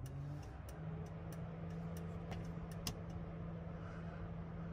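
Ford F100 turn-signal flasher clicking at a steady rate, about two light clicks a second, with a low steady hum underneath.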